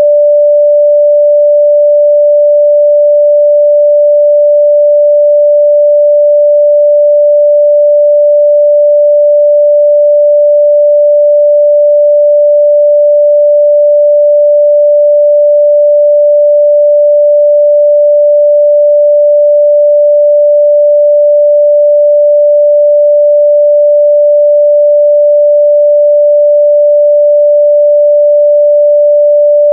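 A steady, unbroken 588 Hz sine-wave test tone, a single pure pitch in the midrange, held at constant level.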